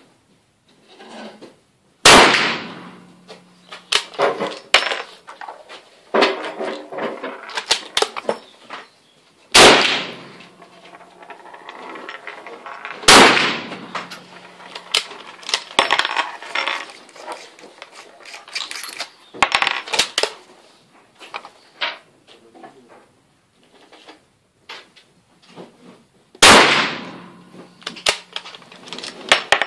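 Four shots from a Ruger 77/44 .44 Magnum bolt-action carbine, each echoing briefly in the covered firing booth. Between the shots come metallic clicks and clinks of the bolt being worked and brass cases landing.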